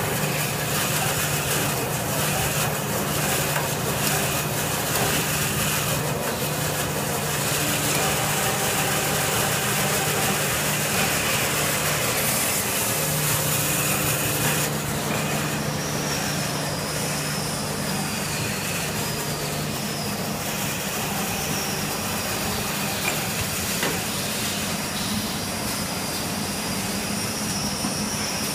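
Automatic towel-paper band saw and plastic-bag packing machine running: a steady mechanical hum under a continuous hiss, a little quieter after about halfway.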